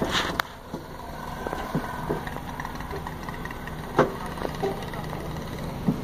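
A car engine idling steadily, heard from inside the cabin, with a few sharp knocks: one just after the start, a loud one about four seconds in, and one near the end.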